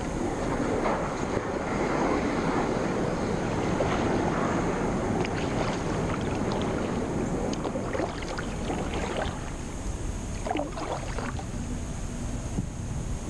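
Kayak paddling through a calm creek: water splashing and washing around the hull and paddle, heaviest in the first half, then thinning to scattered splashes and drips, over wind rumble on the microphone.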